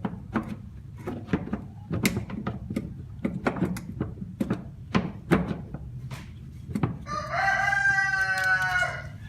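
Irregular sharp clicks and knocks of hand work on a utility vehicle's parts, then about seven seconds in a rooster crows once, loudly, for about two seconds.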